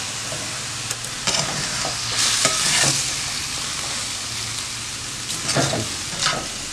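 Noodles and vegetables sizzling as they are stir-fried and tossed in a stainless steel kadhai. The metal spatula scrapes and clinks against the pan now and then, and the hiss swells a couple of seconds in.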